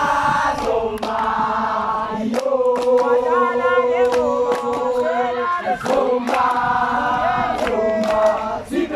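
A group of teenage boys singing a chant together in long held notes, with sharp hand claps here and there.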